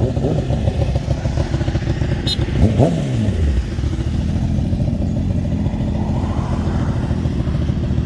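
Sport motorcycle engines idling, with a quick throttle blip right at the start and a sharper rev about three seconds in that rises and then falls away.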